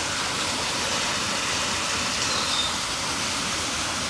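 Steady rushing background noise, even throughout, with one faint short high chirp that glides down in pitch about two seconds in.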